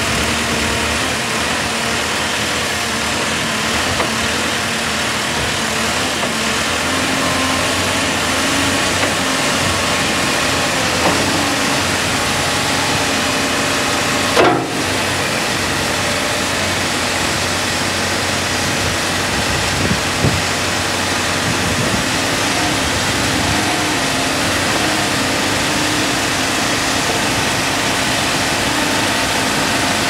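JCB 3CX backhoe loader's four-cylinder diesel engine running steadily while the backhoe arm is worked through its hydraulics. There is a brief sharp noise about halfway through and a couple of light knocks.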